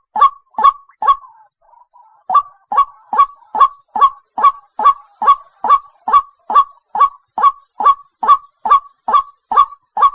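White-breasted waterhen calling its loud, monotonous 'kru-ak' note over and over, about two calls a second. There is a brief pause about a second in, filled by softer, lower notes, before the steady series resumes.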